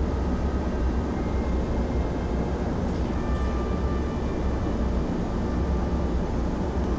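Steady low rumbling background noise, even throughout, with a few faint thin tones passing in the first half.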